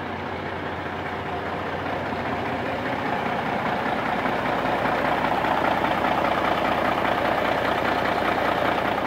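Freshly rebuilt Cummins N14 Select Plus inline-six diesel running at a steady idle on its first run after the engine repair, heard close at the open engine compartment. It grows louder over the first few seconds, then holds steady.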